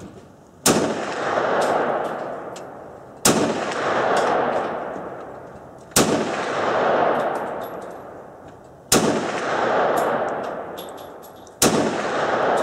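CZ-52 pistol firing 7.62x25 mm rounds: five sharp shots, evenly spaced about two and a half seconds apart. Each is followed by about two seconds of echo that swells and fades under the wooden roof of the shooting shed, with faint light clinks between shots.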